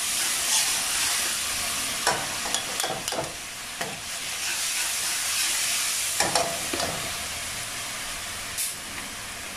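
Garlic and roasted chili paste sizzling in hot oil in an aluminium wok, stirred with a metal ladle that scrapes and knocks against the wok several times.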